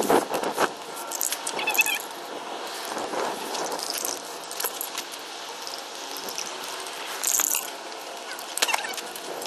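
Skateboard rolling on rough pavement, the wheels rumbling and the board rattling, with several sharp clacks scattered through, the loudest near the start and about seven seconds in.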